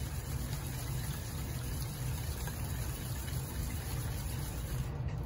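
Wire balloon whisk beating a thin liquid mixture of egg, milk and cream in a stainless steel bowl, a steady continuous whisking.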